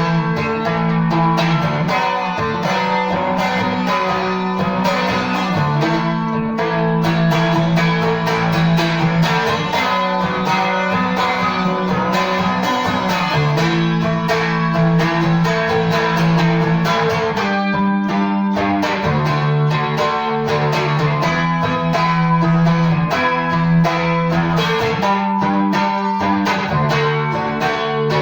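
Seagull Merlin M4, a four-string dulcimer-style instrument, played solo: a plucked melody over steady low drone notes.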